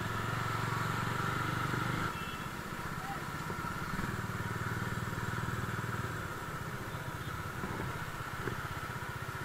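Bajaj Dominar 400's single-cylinder engine running while riding in traffic. Its note drops about two seconds in, picks up again a couple of seconds later, and eases once more after about six seconds.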